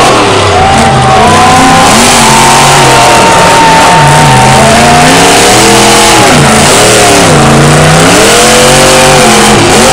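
A monster truck's engine revving hard, its pitch rising and falling again and again as the truck spins in the dirt. The sound is loud and continuous, with deeper drops in revs a little past the middle.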